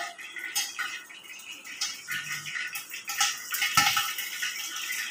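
Light handling noises: scattered small clicks and taps as plates of ingredients and the phone are moved about, with one duller knock just under four seconds in.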